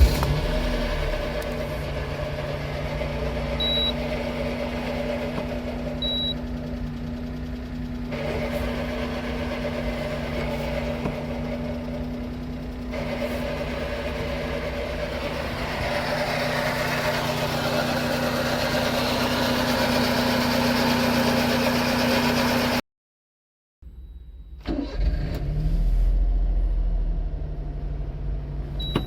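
Honda Beat's small three-cylinder engine idling with a loud rattling, hissing mechanical noise from worn clutch and transmission bearings. After a sudden cut, a second take of the engine starting and idling sounds noticeably quieter, with much less of the high-pitched hiss, as it does once the bearings are replaced.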